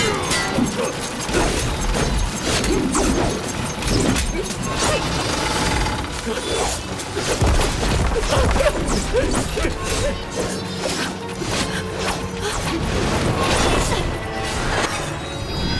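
Action-film fight soundtrack: dramatic music under a dense run of crashes, clanks and blows from a battle with wooden mechanical fighting figures.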